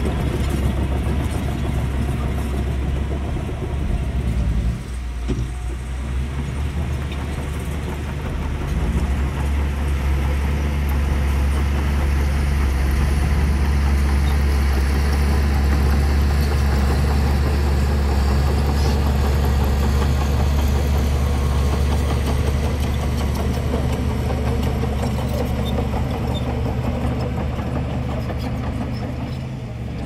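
Small crawler bulldozer's diesel engine running steadily as it pushes a load of wet mud with its blade, with a brief drop in loudness about five seconds in.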